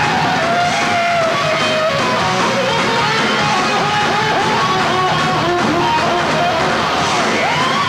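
Heavy metal band playing live, with an electric guitar lead line of bent, wavering notes over the full band.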